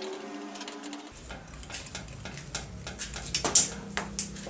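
Rusty steel parts of an old circular saw clinking and scraping against each other as it is taken apart by hand. There is a sharp metallic clank about three and a half seconds in. A faint rising tone runs through the first second.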